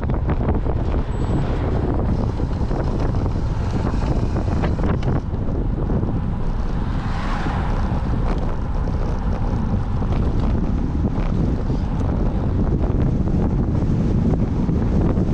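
Strong wind buffeting the microphone, a steady low rumbling noise, with a brief swell of higher hiss about seven seconds in.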